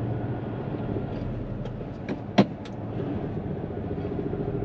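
Truck diesel engine and road noise heard inside the cab of a Hino tractor unit on the move, a steady low hum. Near the middle come four short sharp clicks within about a second, the third the loudest.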